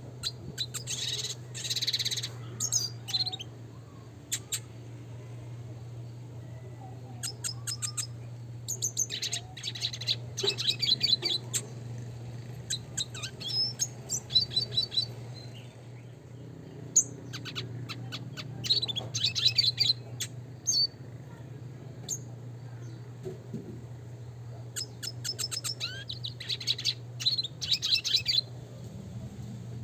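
Red siskin singing: phrases of rapid, high twittering chirps and rolling trills, each lasting a second or a few seconds, with short pauses between them. A steady low hum runs underneath.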